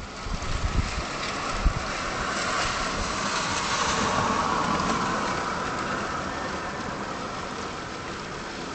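Rushing hiss of heavy rain in a thunderstorm. It swells to a peak about four seconds in and then slowly eases. In the first second or two there are low thumps of wind buffeting the microphone.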